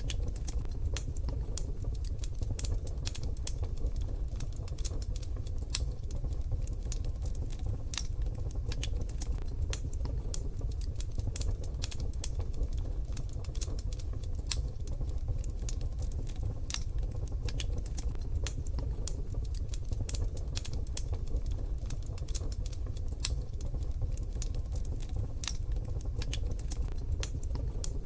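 Wood fire crackling in a wood-burning stove: many irregular sharp snaps and pops over a steady low rumble.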